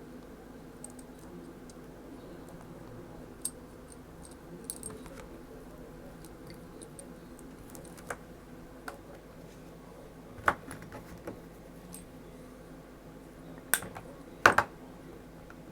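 Scattered light clicks and taps of small tools and parts being handled while rewiring a soldering iron handle, over a faint steady hum; the loudest knocks come in a quick cluster near the end.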